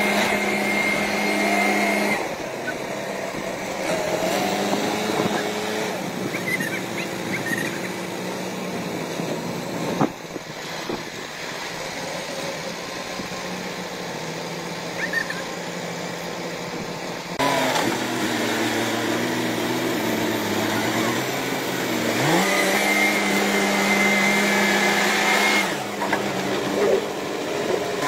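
Diesel tractor engines working hard in deep mud, revving up and down; the engine note rises steeply at the start and again about twenty-two seconds in. A single sharp knock stands out about ten seconds in.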